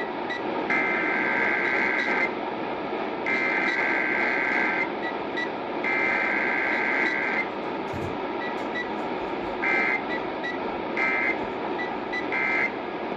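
Emergency Alert System SAME header: three screeching digital data bursts of about a second and a half each, then three short end-of-message bursts near the end. Heard over AM radio reception, with steady static hiss underneath.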